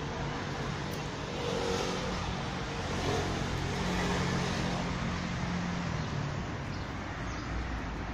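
Street traffic: a motor vehicle's engine running, growing louder over the first few seconds and then fading as it goes past.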